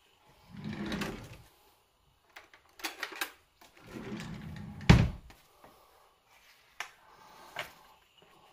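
Kitchen utensils and dishes handled while spooning fillings onto a taco: light clicks and scrapes, two softer scuffs, and one sharper knock about five seconds in, the loudest sound.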